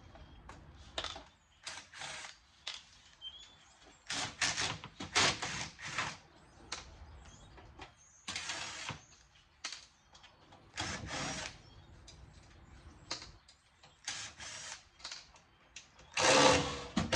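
Power drill/driver backing Phillips head screws out of the metal case of a stereo receiver, running in short irregular bursts with pauses between them.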